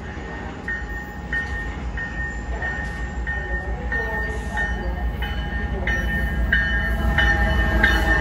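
GO Transit MP40PH-3C diesel locomotive approaching with its bell ringing about one and a half strokes a second, growing louder as it nears, over a low diesel engine rumble.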